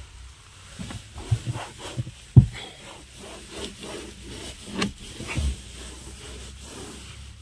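Microfibre cloth rubbing across a plastic car dashboard in uneven wiping strokes, buffing in sprayed dashboard polish, with a few soft knocks of the hand against the dash, the loudest about two and a half seconds in.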